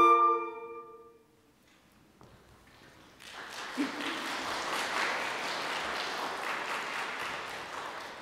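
Flute ensemble's final held chord dying away in the hall's reverberation, then a moment of silence and audience applause starting about three seconds in and tapering off near the end.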